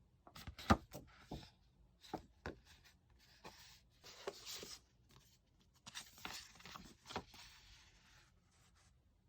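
Packaging being handled by hand while a parcel is unboxed: scattered taps and clicks, then two spells of rustling and scraping, as of paper, plastic or tape being pulled and rubbed.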